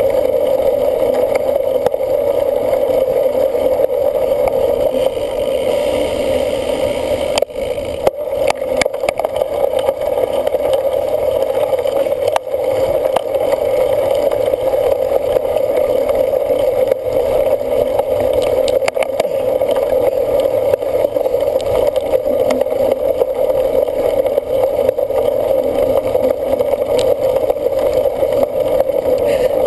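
Steady wind and rolling noise on a camera carried along on a cyclocross bike in motion, with several sharp knocks and rattles from bumps in the course.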